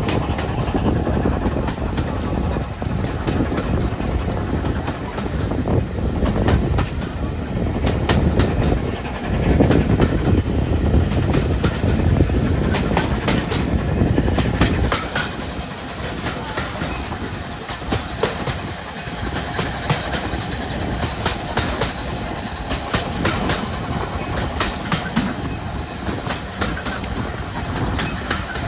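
Railway carriage of a moving train running along the track, a steady rumble with the wheels clicking over the rail joints. The sound drops in level about halfway through.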